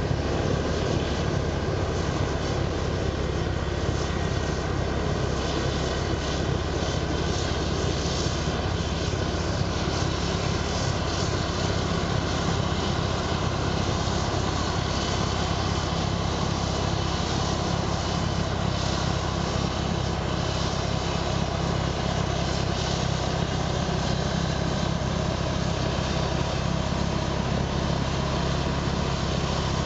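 Vohl VL-350 loader-mounted snow blower running steadily under load, its 350 hp John Deere diesel engine and impeller throwing snow in a continuous drone.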